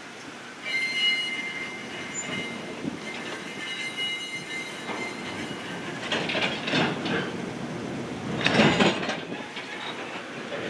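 Passenger coaches rolling slowly by, their wheels squealing in a steady high pitch from about a second in, then clattering in short bursts, the loudest near the end.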